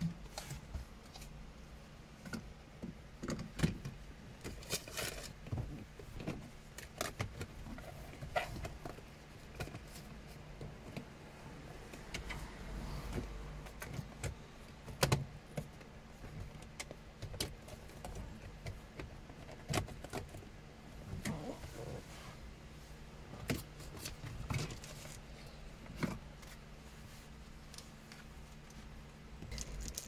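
Irregular clicks, snaps and light rattles of hard plastic trim and small metal parts being handled, as the shift boot and its chrome-trimmed plastic surround are worked around a Chevrolet Trax gear lever. A steady low hum runs underneath.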